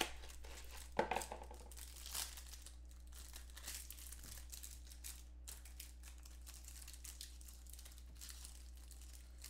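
Clear plastic wrapper of a trading-card pack crinkling as it is torn open and handled, with louder crackles about a second in and again just past two seconds, over a low steady hum.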